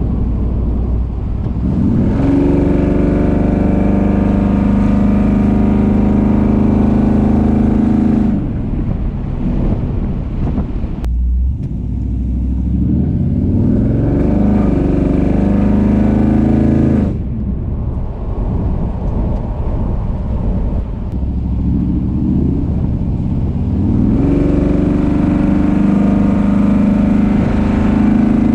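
Built Chevrolet small-block 350 V8 exhaust through long-tube headers and Cherry Bomb glasspack mufflers, heard from inside the cab of a 1985 Chevy C10 pickup while driving. The engine comes on hard under throttle about two seconds in and lets off around eight seconds. It pulls again with rising pitch about twelve to seventeen seconds in, eases to a lighter cruise, and pulls hard again near the end.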